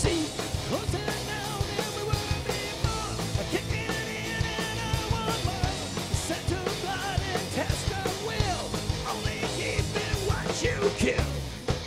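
Live groove metal band playing an instrumental passage: distorted electric guitars, bass and drum kit, with a melodic lead line bending in pitch over the band.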